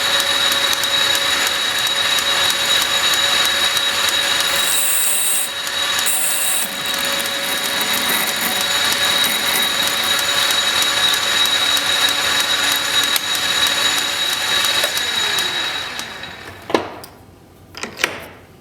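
South Bend metal lathe running with a steady whine, then switched off and winding down about fifteen seconds in, followed by two sharp clicks near the end.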